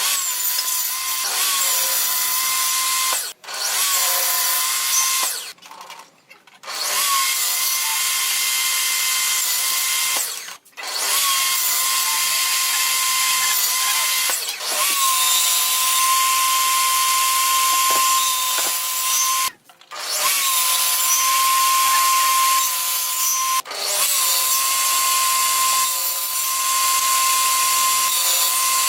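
Electric power tool running on wood, its motor whining at a steady pitch in runs of a few seconds, cut by brief stops and restarts between runs.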